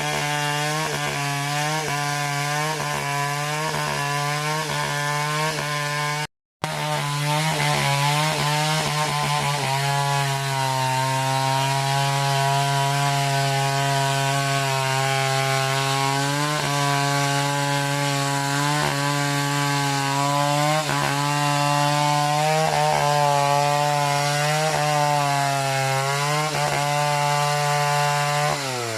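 Chainsaw running under load, cutting into a coconut palm trunk, its engine note dipping again and again as the chain bites. There is a moment's silence about six seconds in, and the engine falls in pitch as it slows right at the end.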